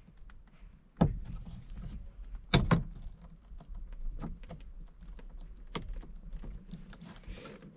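A screwdriver working at a stuck door-card screw in a car door: scattered clicks and scrapes of metal on metal, with two sharper knocks about one second in and about two and a half seconds in.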